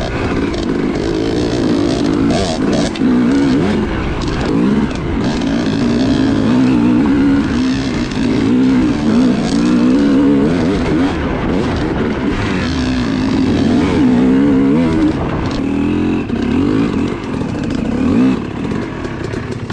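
Yamaha YZ250 two-stroke dirt bike engine heard on board, the throttle worked on and off so the revs rise and fall over and over. Occasional knocks come through.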